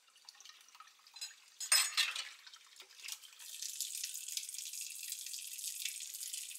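Kitchen faucet running into a sink during hand dishwashing, with a short loud burst of sound about two seconds in. From about three seconds on, the tap's stream splashes steadily on a plate held under it for rinsing.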